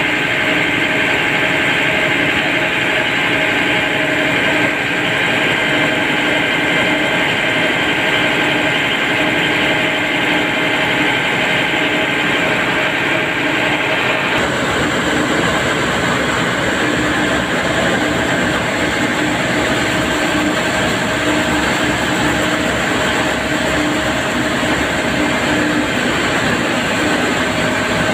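Large marine diesel engines running steadily in a ship's engine room: a loud, dense drone with a steady whine through it. About halfway through the balance shifts, with more low rumble and less of the upper whine.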